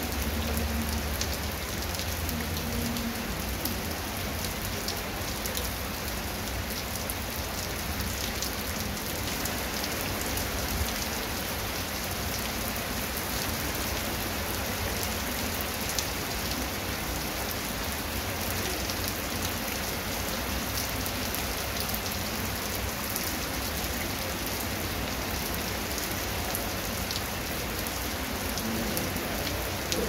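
Heavy rain falling steadily on a wet concrete path and grass: a continuous hiss dotted with many individual drop splashes.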